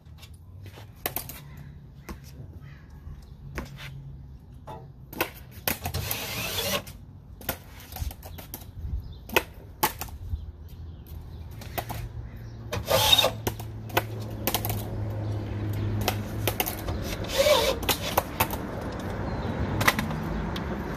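Cordless drill driving self-tapping screws into a sheet-metal trailer propane tank tray, in several short runs about 1, 6, 13 and 17 seconds in, with clicks and knocks from handling the screws and metal in between.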